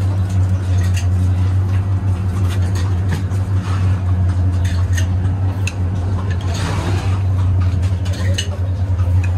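A steady low hum under scattered clinks of glass bottles and crockery at a drinks counter, with faint voices behind.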